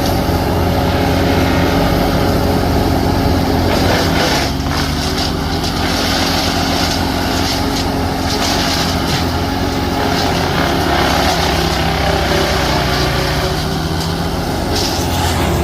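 A large engine running steadily under load, its note shifting slightly about four and a half seconds in.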